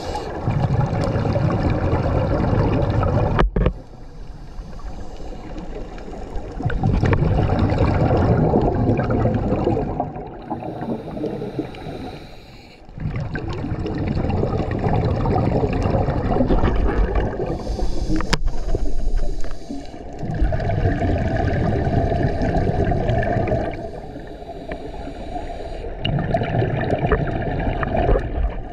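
Scuba diver breathing through a regulator underwater: about five long, gurgling rushes of exhaled bubbles, each a few seconds long, with quieter gaps between them.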